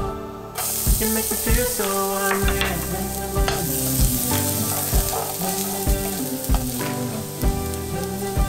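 Minced garlic sizzling in olive oil in a frying pan. The sizzle starts about half a second in and holds steady.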